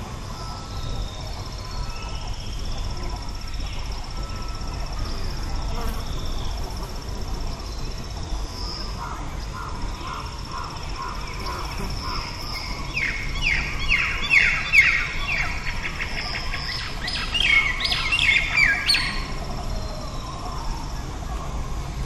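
Songbirds calling over a steady high insect drone and a low rumble of breeze. A run of repeated lower notes comes partway through. Then come two louder runs of quick, falling whistled notes near the end.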